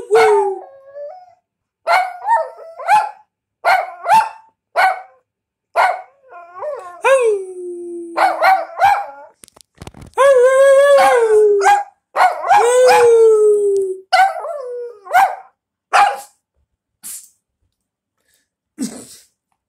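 Small chihuahua dog barking at play in short high yips, with two long howling calls that slide down in pitch about ten and twelve seconds in.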